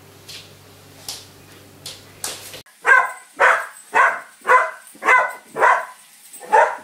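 A dog barking in a steady run of about seven loud barks, roughly two a second, starting about three seconds in. A few faint ticks come before the barking.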